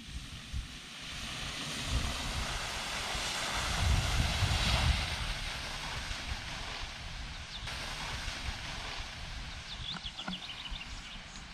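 Wind buffeting the microphone while moving down a ski slope: a gusty low rumble under a steady rushing hiss, strongest about four to five seconds in.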